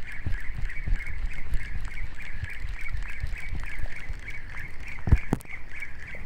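Wind buffeting the microphone, under a steady, rapidly pulsing high-pitched chirring, with two sharp knocks a little past five seconds in.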